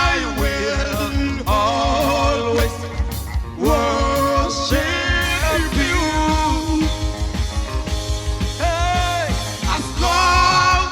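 Gospel song with a lead voice singing long, bending sung phrases over a band with a steady bass and beat.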